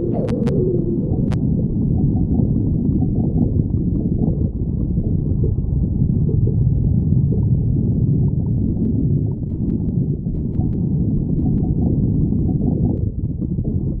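Human stomach growling: a continuous low gurgling rumble, with a short squealing gurgle that fades out about a second in and a few sharp clicks in the first second and a half.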